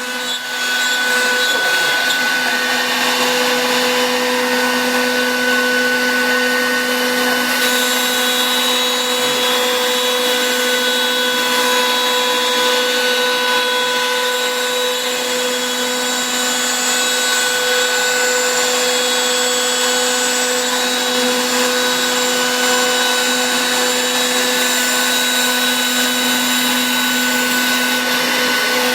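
Spindle of a Suda ST-8070 CNC engraving-milling machine running at speed and milling foamed PVC sheet: a steady, high whine over cutting hiss, coming up to full level in the first second.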